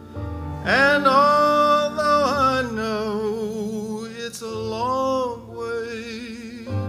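A choir singing long held notes with vibrato over a low sustained accompaniment. The voices come in loudly under a second in, ease off past the middle, and start a new phrase near the end.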